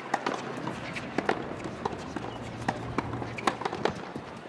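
Tennis balls struck by rackets and bouncing on a hard court during a rally: a string of sharp, irregular pops, with running footsteps between them.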